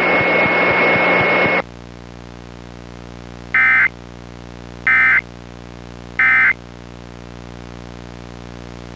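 Harsh static with a steady high tone cuts off about a second and a half in, leaving a low steady hum. Three short bursts of warbling data tone follow, about 1.3 s apart: the Emergency Alert System end-of-message (EOM) SAME code, signalling the end of the alert.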